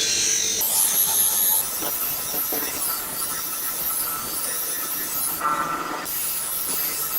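Continuous abrasive hissing and rasping from a tool working a steel knife blank, changing in character a little after half a second and again around a second and a half in.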